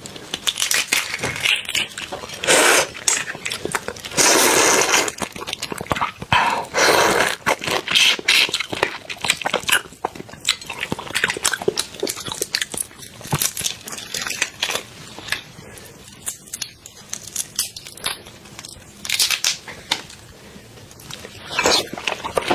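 Crackling and tearing of shells as large whole cooked prawns are pulled apart and peeled by hand. It comes as a run of small snaps and rustling bursts, with several louder bursts.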